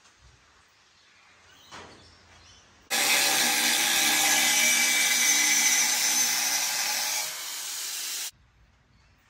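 Angle grinder with a thin cut-off disc cutting through a steel bar on a concrete floor: loud, steady motor whine and disc screech starting about 3 seconds in. It gets quieter about 7 seconds in, then cuts off suddenly about a second later.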